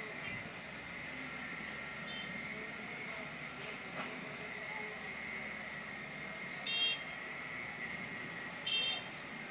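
Excavators working at a distance: a steady engine drone under a constant high whine, broken by a few short high beeps, the two loudest near the end.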